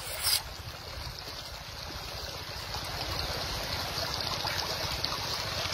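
Shallow river water rippling and trickling over sand and rock, a steady hiss that grows a little stronger toward the end, over a low uneven rumble. A brief sharp burst of noise right at the start.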